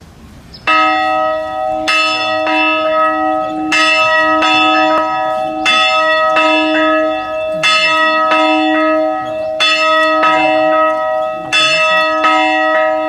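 A single church bell in an open steel bell tower is tolled by pulling its rope. It is struck about thirteen times in an uneven rhythm, roughly every second, and each stroke rings on into the next over a steady low hum. The first stroke comes under a second in.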